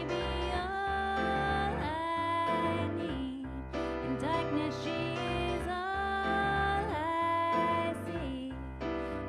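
Woman singing a song with long held notes that slide between pitches, accompanied by piano chords played on a Nord Stage 2 stage keyboard.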